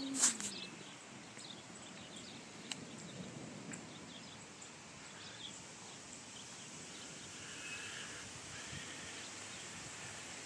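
Quiet outdoor ambience under a gathering storm: a steady hiss with faint bird chirps scattered through it. There is one sharp knock at the very start and no thunder.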